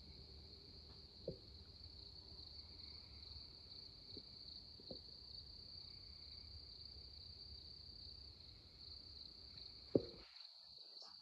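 Steady high-pitched chorus of night insects such as crickets. Over it come a few faint knocks, and about ten seconds in a single sharp snap, the loudest sound.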